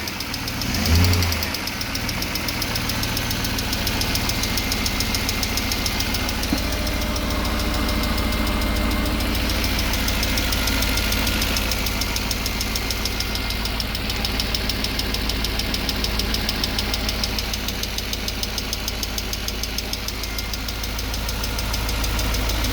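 BMW E39 M5's S62 V8 engine running at idle with a fast, steady rhythmic knock, the new knock that the owner is trying to track down.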